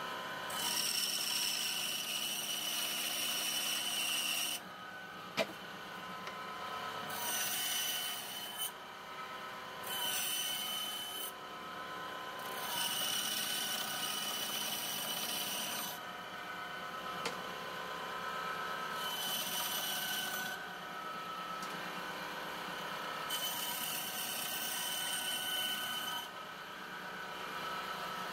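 A 9-inch benchtop band saw runs steadily while its blade cuts a curve through a thin wooden board. The cutting comes in several separate stretches of rasping hiss, with lighter running between them. There is one sharp click about five seconds in.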